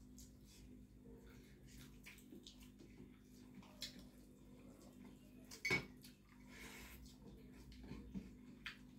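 Faint clinks and scrapes of hands and food against stainless-steel dinner plates while eating, with one sharper clink a little past halfway.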